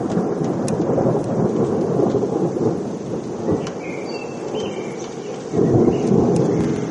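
Loud rolling thunder rumbling, easing off in the middle and swelling again near the end, with a few short bird chirps faintly over it around the middle.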